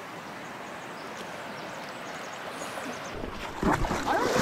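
Steady rush of flowing river water. About three seconds in it gives way to louder, closer splashing and knocking, with a brief voice near the end.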